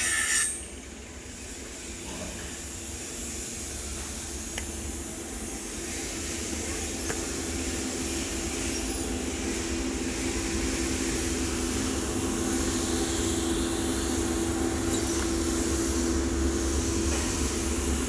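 TIG welding arc on a pipe root pass: a steady hiss with a low steady hum, slowly growing louder. A brief scraping sound cuts off about half a second in.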